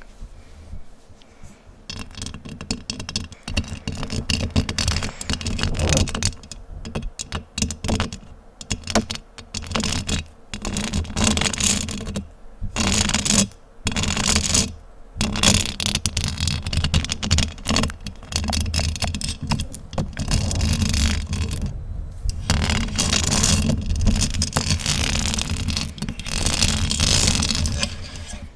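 Fingers scratching fast and hard directly on a microphone: a dense, scratchy rasp that stops briefly several times.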